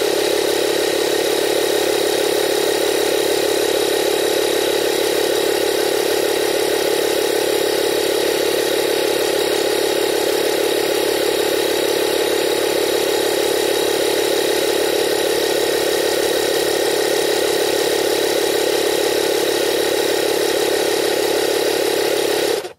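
Avid Power portable 12-volt tire inflator compressor running steadily, a loud drone with a faint high whine, then cutting off abruptly near the end. It runs past its 35 psi auto-stop setting before shutting off.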